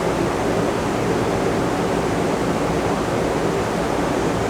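Steady rushing background noise with a faint low hum and no distinct events.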